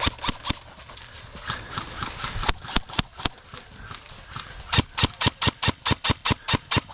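Airsoft guns firing: a few single shots, then from about five seconds in a steady string of shots at about five a second.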